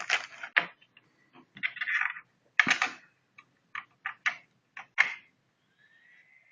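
Irregular sharp clicks and knocks of hard plastic as a laptop side-mount cooler is handled and set up, the loudest about two and a half seconds and five seconds in. Near the end a faint, high, steady whine rises in.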